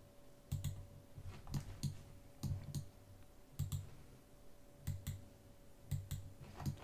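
Computer mouse button clicks, about a dozen at uneven intervals, often in quick pairs, as points are placed for 3-point arcs in CAD software.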